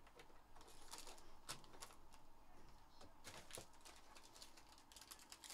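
Faint crinkling and clicking of a foil trading-card pack being handled and torn open, in short irregular bursts.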